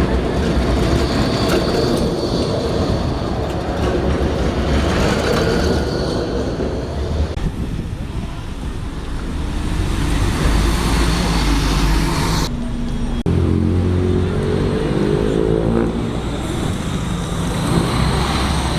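Vehicles passing in a city street, a steady rumble of traffic. After an abrupt cut about two-thirds of the way through, an engine or motor note climbs in pitch for a few seconds as a vehicle pulls away.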